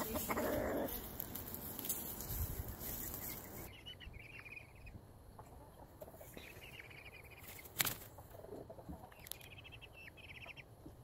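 Chickens clucking as they scratch about outdoors; after a few seconds the sound gets quieter, with short high calls now and then and a single sharp knock about eight seconds in.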